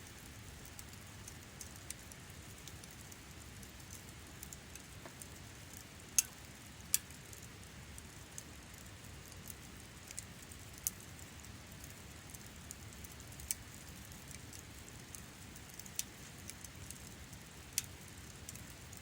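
Wood campfire burning, with a steady low rush and scattered sharp crackles and pops, a few of them louder than the rest.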